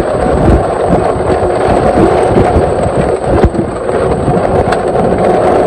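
Strong wind buffeting the microphone in heavy rain: a loud, continuous rushing noise with low rumbling gusts.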